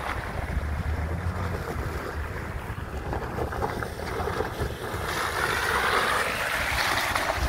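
Chevrolet Trailblazer SUV's engine pulling it up a steep, muddy slope, with wind buffeting the microphone. The engine and tyre noise grow louder over the last couple of seconds as the vehicle climbs closer.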